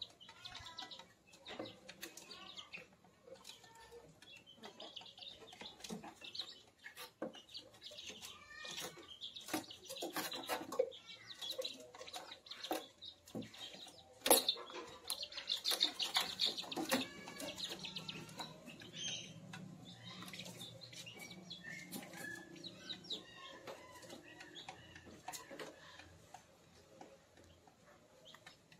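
Month-old kampung chicken chicks cheeping and clucking softly, with scattered sharp taps and scuffles on the wooden slat floor and a short flutter of wings; the loudest tap comes about halfway through.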